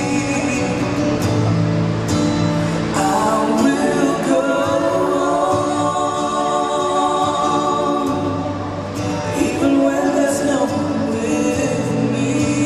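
Recorded Christian worship song with singing, played over PA loudspeakers into a large hall.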